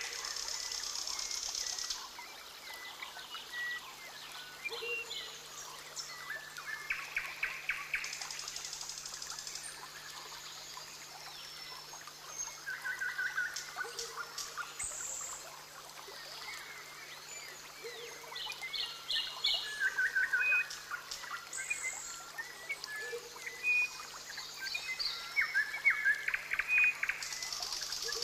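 Rainforest ambience: many birds chirping and trilling throughout, overlapping, with a few short bursts of high buzzing.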